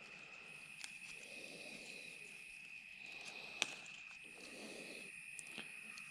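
Crickets trilling steadily and faintly, with soft rustling and a few sharp clicks as tomato-plant leaves are handled and a leaf is pulled off; the loudest click comes about three and a half seconds in.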